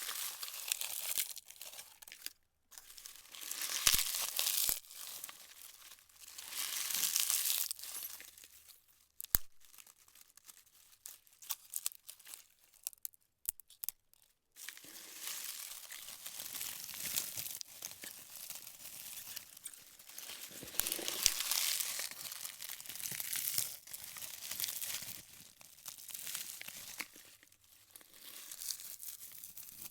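Dry leaves being crunched and crumpled by hand in a bowl: crackling, rustling waves of crunching a second or two long, with a short pause of scattered crackles midway before steadier crunching resumes.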